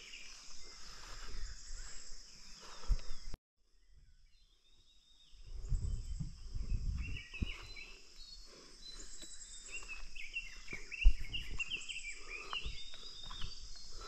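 Insects droning steadily in a high, even band, with scattered higher chirps. The sound cuts out suddenly about three seconds in for roughly two seconds. Low rumbles follow it, and there is a sharp knock about eleven seconds in.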